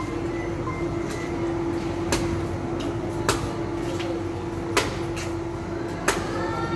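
Blade chopping open green coconuts: four sharp strikes about a second and a half apart, over a steady hum.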